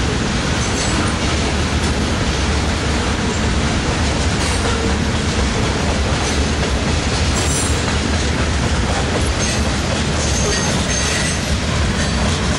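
Loaded covered hopper cars of a freight grain train rolling past at speed: a steady, loud rumble and rattle of steel wheels on the rails.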